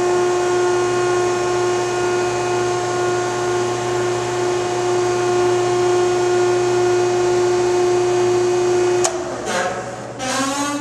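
The hydraulic power unit of a Selco downstroke baler running with a steady whine. About nine seconds in it cuts off with a click, and two brief whining sweeps follow.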